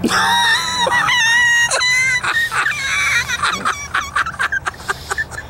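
A high-pitched squealing voice: one long wavering squeal for about two seconds, then breaking into short choppy squeals.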